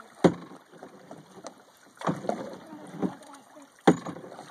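Canoe paddles stroking through the water, with four sharp splashes a second or so apart, the loudest near the end.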